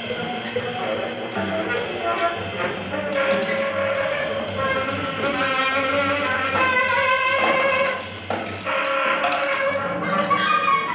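Live free-improvised jazz from a saxophone, double bass and drum kit: the saxophone plays long held notes over the bass, while sticks strike the drums and cymbals.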